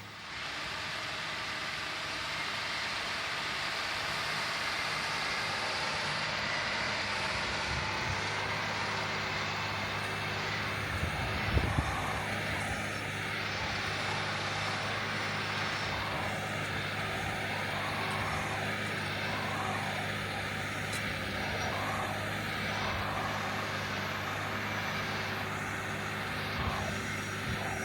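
John Deere 9360R four-wheel-drive tractor's diesel engine running steadily while it pulls an eight-bottom moldboard plow through the field, with a couple of brief knocks near the middle.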